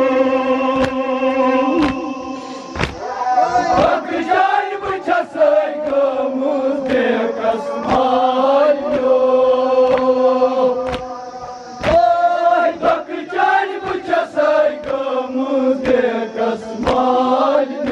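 Men chanting a Kashmiri noha, a Shia lament, through loudspeakers: a lead reciter on a microphone with the group chanting along in long, held lines. Sharp chest-beating (matam) strikes land in a steady rhythm about once a second.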